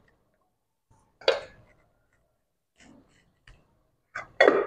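A few short, separate knocks and clinks of steel kitchenware being handled, a pot lid and plates set down on the floor mat: one louder knock about a second in, faint ticks around three seconds, and two louder clinks near the end.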